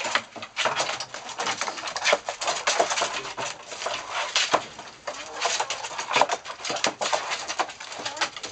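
Chickens pecking and scratching in the straw litter of their run, a dense run of quick, irregular taps and rustles, with soft clucking. They are going for live winged hoppers, pecking them to death.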